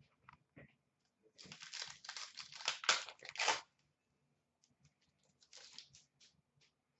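Crinkling and rustling as trading cards and their packaging are handled, in a burst of about two seconds starting one and a half seconds in, then briefly again near six seconds, with small clicks in between.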